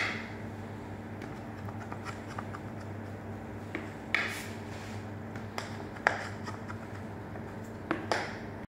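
Knife scoring through a tray of baked semolina harissa topped with cashews: a few short, sharp scrapes and clicks as the blade drags through the crust and nuts, over a steady low hum.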